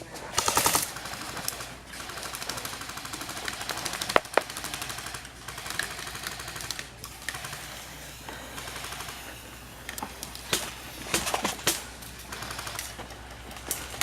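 Airsoft guns firing rapid automatic bursts, a fast clattering rattle. The loudest burst comes about half a second in, with scattered sharp single cracks around four seconds and again after ten seconds.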